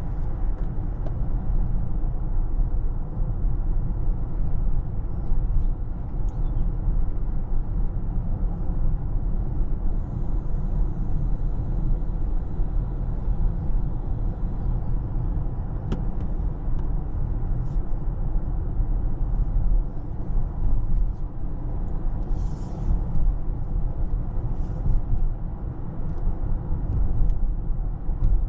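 Steady low road and tyre rumble of a Toyota RAV4 Hybrid being driven, with a sharp click about sixteen seconds in and a brief hiss a few seconds later.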